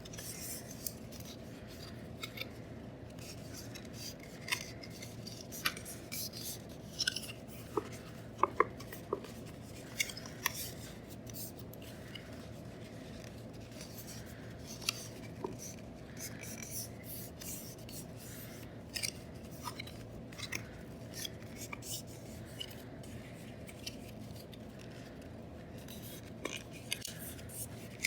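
Paper strip being folded and creased into an accordion by hand: irregular crackles, rustles and soft taps over a steady low background hum.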